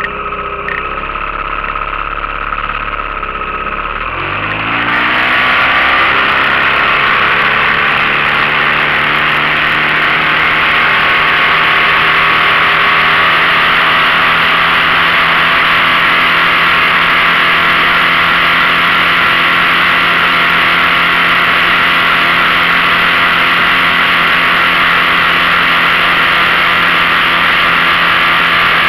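15 hp outboard motor idling, then throttled up about four seconds in, its pitch rising, and running steadily at full speed with a loud rushing noise over it.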